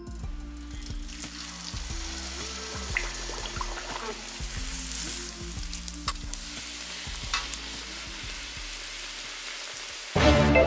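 A large wheat-dough bhatura deep-frying in hot oil in a steel kadai: a steady sizzle with a few faint pops, over quiet background music. Louder music comes in near the end.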